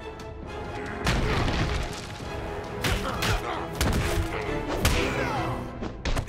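Action-cartoon fight: a dramatic music score under several hard hit and thud sound effects.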